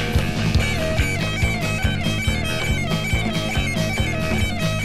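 Rockabilly/surf rock band playing an instrumental passage: a driving drum beat and bass under a high, reedy lead melody with sliding notes.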